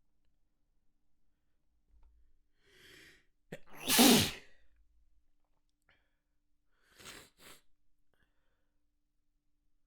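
A person sneezing once, loudly, about four seconds in, after a short in-breath. Two short, softer noisy sounds follow a few seconds later, just after each other.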